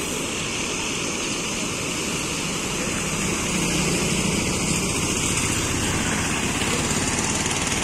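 Steady rush of a flooded stream's muddy water pouring over and along a concrete check dam, an even continuous noise that swells slightly about three seconds in.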